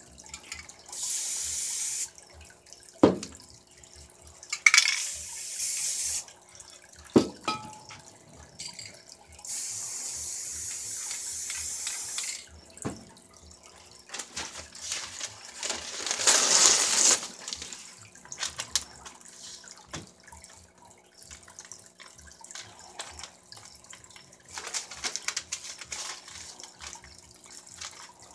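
Aerosol spray paint can hissing in several separate bursts, the longest about three seconds, with a few sharp knocks in between.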